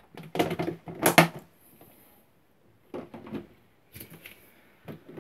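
Plastic snake-rack tubs being handled: several short knocks, scrapes and clatters, much like a drawer being pulled out and pushed back.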